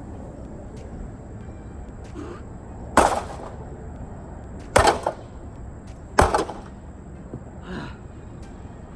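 A microwave oven being smashed: three hard impacts about a second and a half apart, each followed by a brief rattle, then a lighter knock near the end.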